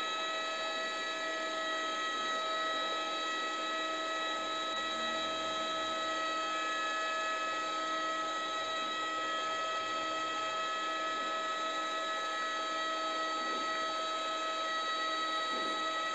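A steady droning hum made of several unchanging tones over a faint hiss, holding at one level throughout.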